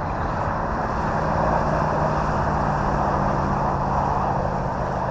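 Electric RC warbird (Horizon Hobby T-28 Trojan 1.2 m) in flight: its brushless motor and propeller give a steady drone, swelling gently and easing off as it passes.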